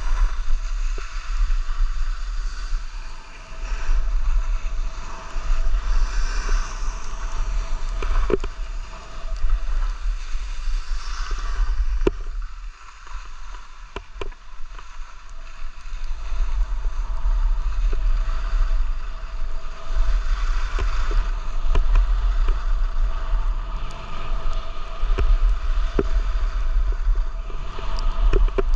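Wind buffeting the microphone of a camera carried downhill on skis, over the hiss and scrape of skis on packed snow, with scattered small clicks. It eases for a few seconds about twelve seconds in.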